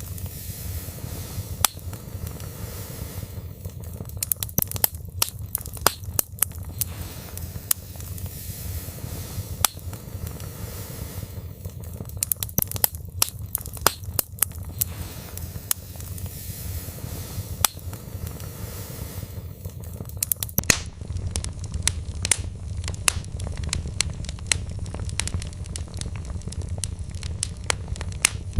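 Wood fire burning in a fireplace: logs crackling and popping with frequent sharp snaps over a steady low rumble of the flames.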